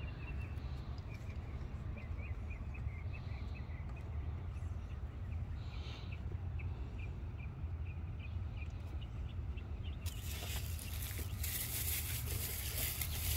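Birds chirping in short repeated calls over a steady low rumble. About ten seconds in, a loud hiss starts and keeps going.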